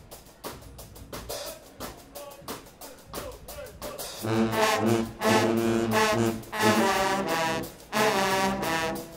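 Guggenmusik carnival brass band playing: a steady drum beat alone, then about four seconds in the full brass section of sousaphones, trumpets and trombones comes in loudly over the drums, with a short break near the end.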